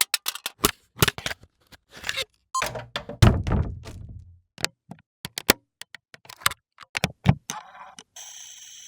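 A string of sharp mechanical clicks and knocks, with a heavy thunk about three seconds in that rings on briefly. Near the end a steady electrical hum starts.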